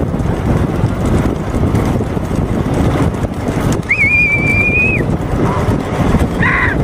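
Steady rumble of wind buffeting the microphone and the running of the vehicle filming from alongside at speed. About four seconds in, one high, steady whistle lasts about a second, and a short higher-pitched call follows near the end.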